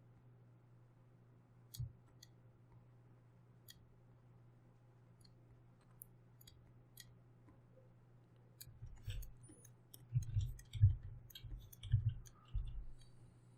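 Faint, scattered clicks from computer input gear during desk work, with a denser run of louder, duller knocks about nine to thirteen seconds in, over a steady low hum.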